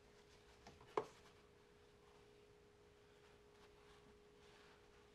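Near silence with a faint steady hum and one light click about a second in.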